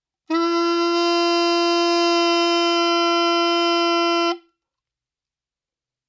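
Saxophone mouthpiece and neck blown on their own: one steady held note of about four seconds that stops sharply. It is blown with the throat in its normal position, as the reference pitch in a voicing exercise, before the larynx is lowered to bring the pitch down.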